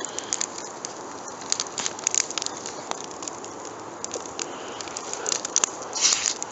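Bonfire of wood and cardboard crackling, with irregular sharp pops over a steady hiss and a denser run of crackles about six seconds in.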